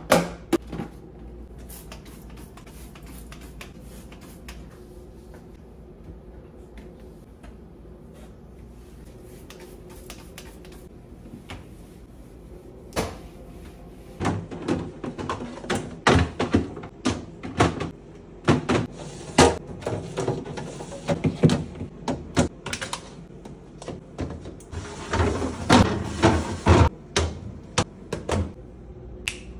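Clear plastic fridge bins and glass food-storage containers knocking and scraping against refrigerator glass shelves as they are set in place. A sharp knock at the very start, a quieter stretch, then from about halfway a busy run of clicks and knocks with a longer scrape near the end.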